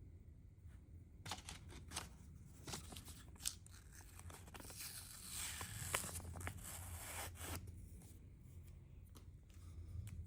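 Handling noises from unboxing a small alarm clock: a run of sharp clicks and crackles starting about a second in, with a few seconds of denser rough rustling in the middle before it settles again.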